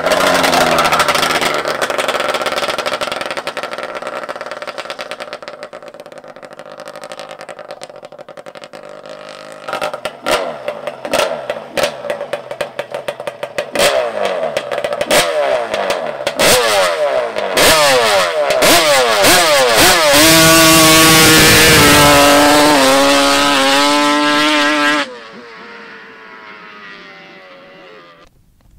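Yamaha Banshee quad's two-stroke twin engine run hard: loud as it passes close, fading as it pulls away over the first several seconds. It then comes back in repeated rising and falling rev sweeps, loudest about twenty seconds in, and breaks off suddenly a few seconds before the end.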